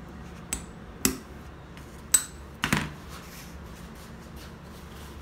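A steel retaining ring and internal snap-ring pliers clicking and clinking against the stainless lower housing of a resin pump as the ring is seated: four sharp metallic clicks in the first three seconds, two of them with a brief ring.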